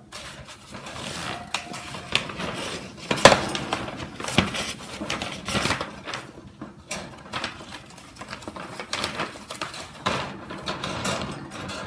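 Sheet of newspaper rustling and crinkling as it is unfolded and spread out, with scattered sharp clicks and light knocks.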